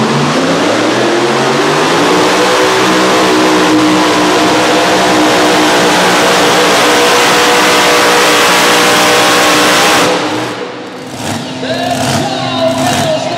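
Mini Unlimited pulling tractor's engine revving up hard at launch, then held at high revs at full throttle while pulling the sled. About ten seconds in it cuts off abruptly at the end of a full pull, leaving a quieter mix with some voices.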